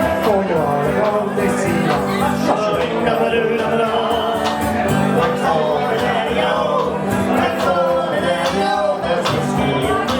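Live Irish folk pub band playing a song, with a man singing over strummed accompaniment.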